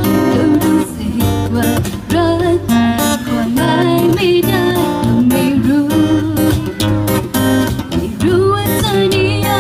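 Live acoustic pop song sung in Thai: singers over a strummed acoustic guitar, with the drum kit barely audible because of a fault in the drum sound.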